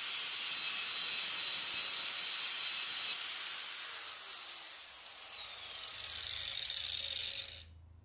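Electric angle grinder with a thin cutting disc running free with a steady high whine, then switched off about a third of the way in, its pitch falling steadily as the disc spins down until it stops near the end.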